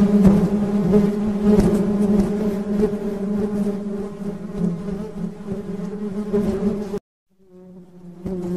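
Honey bees buzzing, a steady hum. It cuts out suddenly about seven seconds in, then fades back in near the end.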